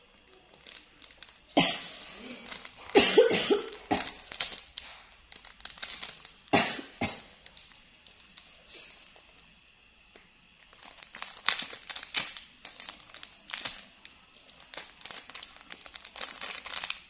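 A woman coughing several times in short, sudden bouts, the cough of someone unwell. Light rustling and clicking follow later.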